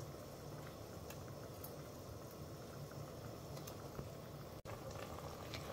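Pot of spinach broth at a rolling boil: a steady low bubbling rumble with a few faint ticks.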